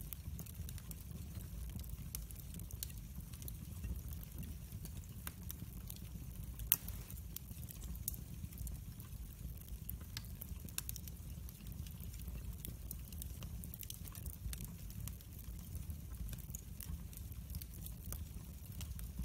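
Split-log wood fire burning in a fireplace, crackling with scattered sharp snaps and one louder pop about a third of the way in, over a low steady rumble.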